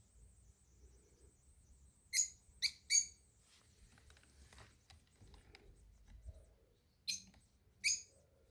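Small animal giving short, high-pitched squeaky calls: three in quick succession, then two more near the end.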